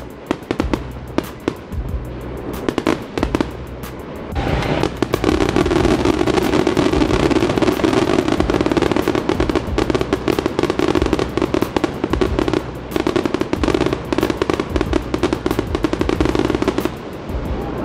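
Aerial fireworks going off: a rapid, irregular stream of sharp bangs and crackles. About four seconds in it thickens into a dense continuous barrage, which eases near the end.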